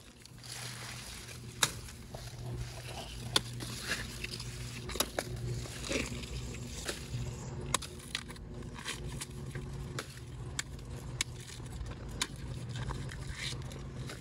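Corn plants rustling, with a dozen or so sharp snaps at irregular intervals as ears of corn are picked and handled by hand, over a steady low hum.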